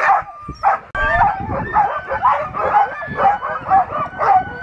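A team of harnessed sled dogs barking and yipping all at once, a dense, overlapping chorus that thickens about a second in: the excited clamour of sled dogs eager to run.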